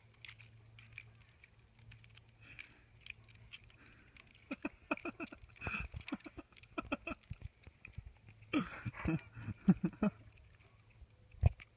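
A dog scrambling on a tree trunk and the leaf litter below: irregular scratching and pattering of claws on bark and leaves. It is busiest through the middle, with one sharper knock near the end.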